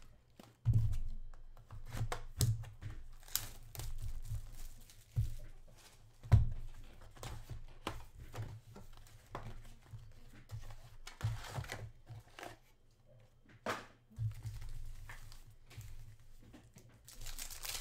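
Plastic shrink-wrap being slit and torn off a 2020-21 Panini Prizm basketball card box, then the box opened and its foil packs crinkling as they are handled and set down, with scattered knocks on the table. A sharp knock about six seconds in is the loudest.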